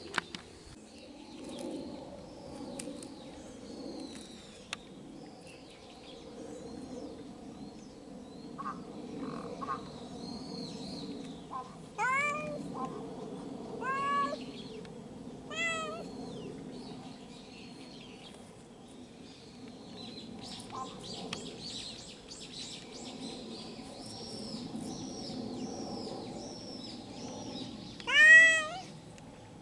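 A stray cat meowing: three short meows rising in pitch, spaced a couple of seconds apart in the middle, then a louder meow near the end.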